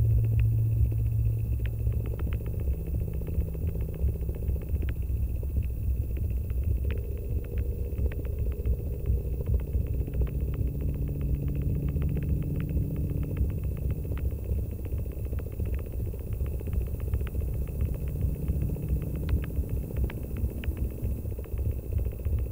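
Experimental analog electronic drone: a deep rumbling low layer with held tones that fade in and out at shifting pitches, a faint steady high whine, and scattered crackling clicks.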